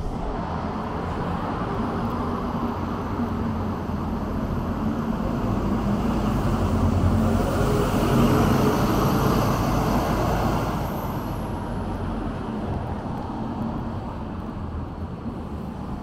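A vehicle passing by, building to its loudest about halfway through and then fading, with a thin high whine while it is closest, over a steady background of traffic.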